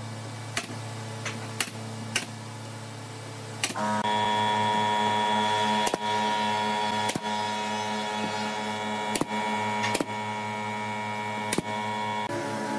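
Pneumatic nail gun firing into wood, about ten sharp shots spaced unevenly, over a steady machine hum. A louder steady hum with several tones comes in about four seconds in and drops near the end.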